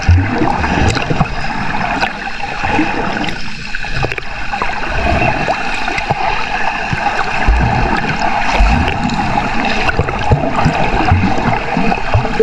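Water sloshing and gurgling around a GoPro action camera at the sea surface while snorkeling, with scattered low thumps throughout.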